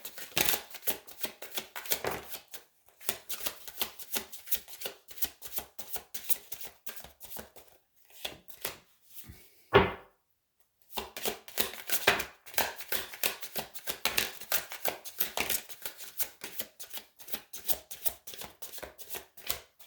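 A deck of tarot or oracle cards being shuffled by hand: a dense run of quick card clicks and flutters. The clicks stop for about a second near the middle, just after a single louder knock, then start again.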